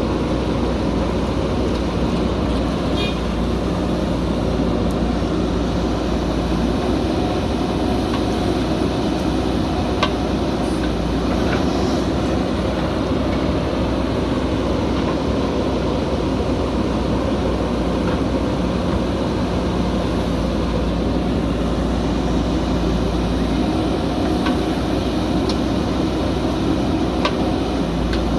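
Diesel engine of a JCB backhoe loader running steadily under work, with a few faint clicks here and there.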